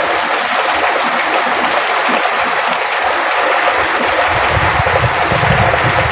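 Heavy rain pouring down steadily as an even hiss. A low rumble joins in for the last two seconds or so.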